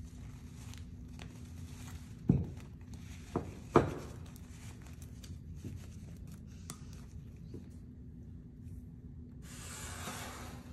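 Handling noise as a fishnet stocking and bow are worked over a mannequin leg: fabric rubbing and rustling, two sharp knocks about a second and a half apart, and a short rustle near the end, over a faint steady hum.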